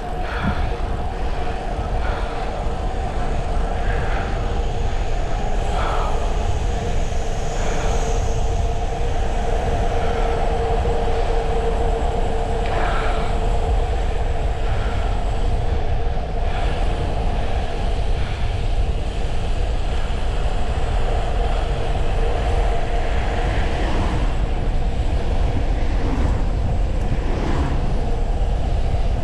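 Wind rushing over the microphone and tyre noise from a Brompton folding bike coasting fast downhill, with a steady two-note whine over the rumble.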